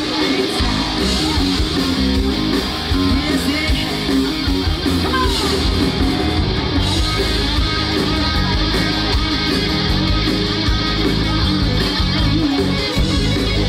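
Live rock band playing loudly: electric guitar over bass guitar and a drum kit.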